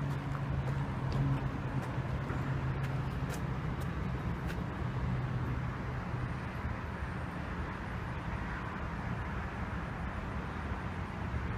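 Steady rumble of road traffic, with a vehicle engine hum that slowly fades.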